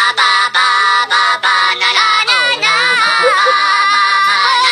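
A high-pitched singing voice: a run of short, quick notes, then long held notes that waver in pitch.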